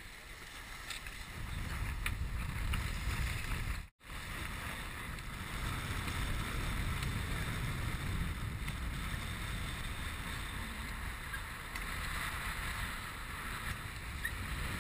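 Wind buffeting the microphone and water rushing along the hulls of a Dazcat 1150 sailing catamaran under way at speed, a steady rumble and hiss. The sound cuts out for an instant about four seconds in, then carries on.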